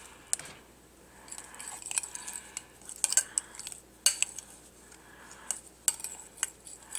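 Metal spoon clinking and tapping against a dish, a series of short, sharp clicks at irregular intervals.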